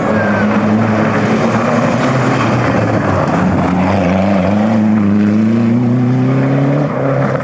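Rally car engine at high revs as the car passes and accelerates away, its pitch rising steadily over several seconds.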